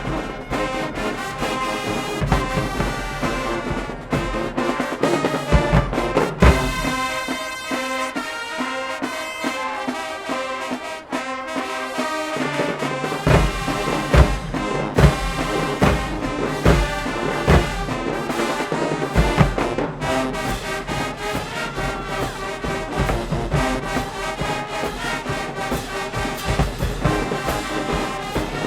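Marching band playing: brass section with trombones and trumpets over drumline hits. The low drums drop out for about five seconds in the middle, leaving the horns alone, then come back in with heavy bass drum strokes.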